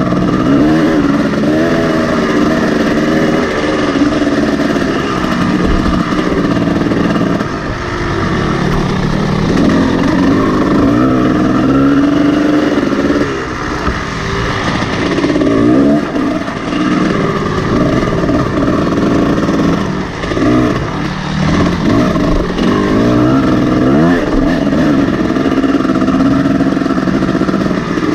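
Kawasaki KX 250 two-stroke dirt bike engine heard from on board, revving up and down through the gears, with the throttle chopped briefly several times.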